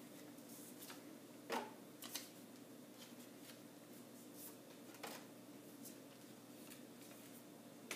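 Paper cards being handled and dropped into a cardboard box: a few faint paper rustles and soft taps, the clearest about a second and a half in, over quiet room tone.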